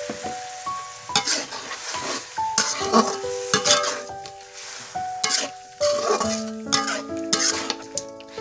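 Metal spatula stirring and scraping chunks of food around a large metal wok, striking the pan about twice a second, with the food sizzling.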